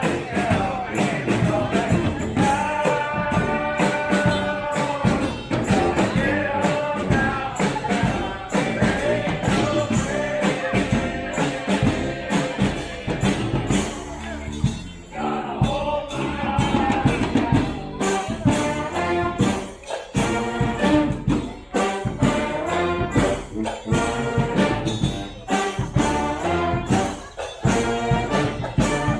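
Street brass band playing a tune: horns such as trumpets and trombones carry the melody over drums and percussion.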